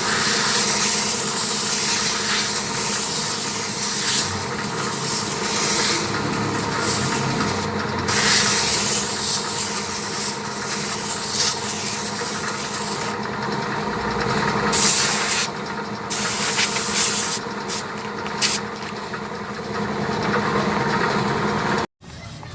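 Compressed air from an air-compressor blow gun hissing through a ten-wheeler truck's air filter element to blow the dust out, in long blasts broken by a few short pauses, over a steady hum. It cuts off suddenly near the end.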